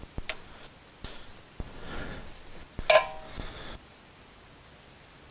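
Metal hand tools clicking and clinking against the brake caliper while the Allen bolts holding the electronic parking brake motor are undone. About three seconds in comes one sharp metal clink that rings briefly.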